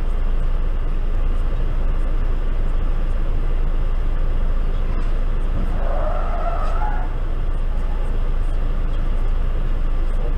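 Steady low rumble of traffic and the idling car heard from inside the car, with a brief wavering squeal-like tone about six seconds in.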